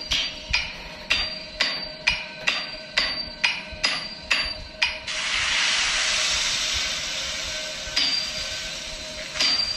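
Blacksmith's hammer striking hot metal on an anvil: about ten ringing blows, roughly two a second. About halfway through, a steady rushing hiss takes over, with a couple of sharper hits near the end.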